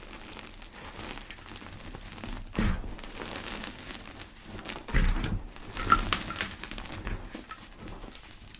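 Pebbles of gym chalk being crushed and crumbled by hand, giving soft crunches and crackles. Stronger crunches come about two and a half seconds in and again around five and six seconds in, with quieter rustling between.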